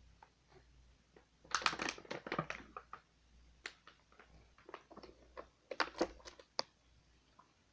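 Crinkling and crunching from a bag of crunchy flaming hot cheddar fries snacks, in two crackly bursts, one about a second and a half in and one around six seconds in, with a few quieter clicks between.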